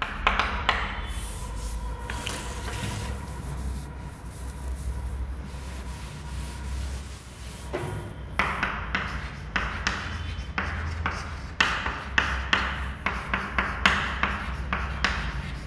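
Chalk writing on a chalkboard: quick scratching strokes for the first second or so, a quieter stretch of several seconds, then a steady run of strokes from about halfway through to the end.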